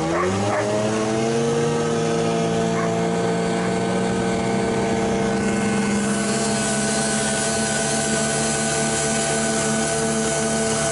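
Snowmobile engine pulling away, its pitch rising over the first second or so, then running at a steady pitch as it travels across the snow.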